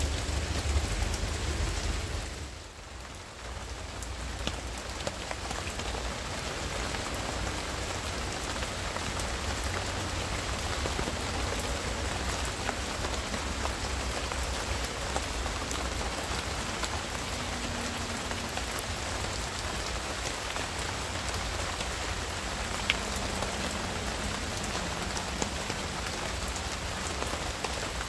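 Steady rain falling on garden foliage, with scattered close drops ticking. The sound dips briefly about three seconds in, then carries on evenly.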